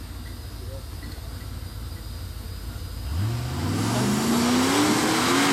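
Rock crawler's engine running at a low rumble, then revved hard about three seconds in, its pitch climbing steeply and the sound getting much louder as it powers up the rocky hill.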